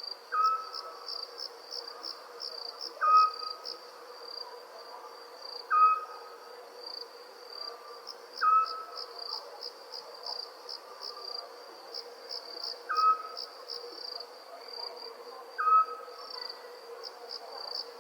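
Night ambience of crickets chirping in steady rapid pulses, with a short louder animal call repeating about every three seconds.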